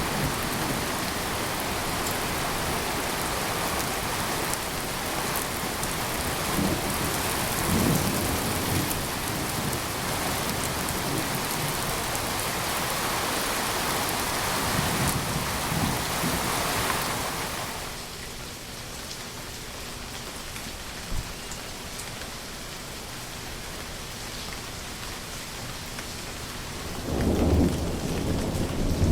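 Steady rain falling, with low rumbles of thunder several times. About two-thirds of the way through the rain drops to a softer patter, and a louder thunder rumble comes near the end.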